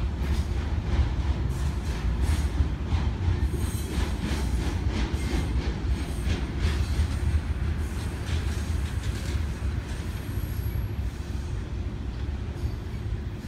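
Intermodal freight train of flatcars carrying semi-trailers rolling past, a steady low rumble with a run of wheel clicks over the rail joints. The clicks thin out near the end.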